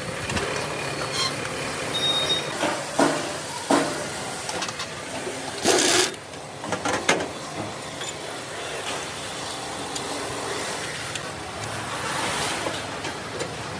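Workshop assembly noise: scattered metal knocks and clanks as an engine is fitted and its hoses attached, over a steady factory din, with one loud half-second burst of noise just before six seconds in.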